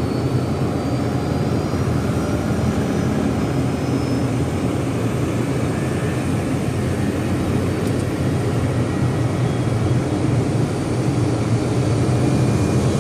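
Jet airliner engines running steadily on the ground: a constant low hum under a broad, even rush of jet noise.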